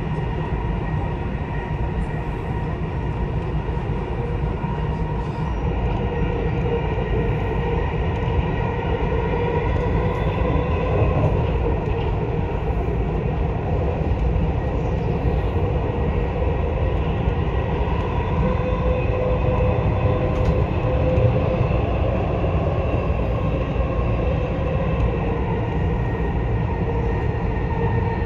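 Dubai Metro train running at speed, heard from inside the carriage: a steady rumble of wheels on rail with a steady whine that drifts slightly in pitch.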